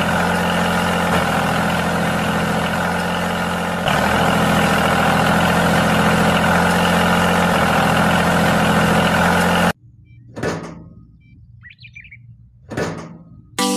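Small motor of a homemade model tractor running steadily with a low hum and several held tones, cutting off suddenly about ten seconds in. Then two short scraping rustles and a faint chirp.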